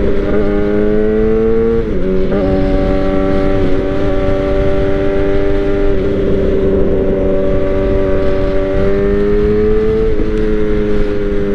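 Suzuki GSX-R sportbike's inline-four engine running at highway speed under throttle, heard over steady wind and road noise. Its pitch creeps upward and then drops sharply twice, about two seconds in and again near the end.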